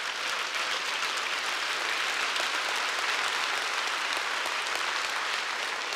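Audience applauding steadily, a dense run of many hands clapping.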